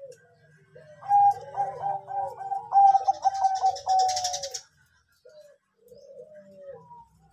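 A Bangkok-strain perkutut (zebra dove) cooing its song: a quick run of short coo notes that rise and fall, loudest from about a second in to past the middle, then softer coos near the end. A short hiss overlaps the end of the loud run.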